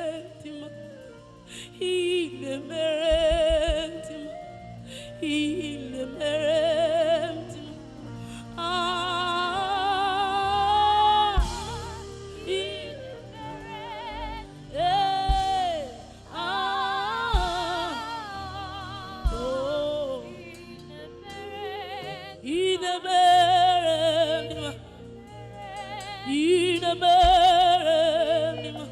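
A solo voice singing a slow gospel worship song with heavy vibrato and long held notes, over sustained instrumental chords.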